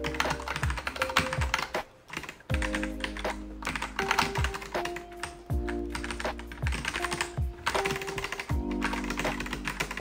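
Fast typing on a computer keyboard, keys clicking in quick runs, over background music with held chords and a bass line; both drop away briefly about two seconds in.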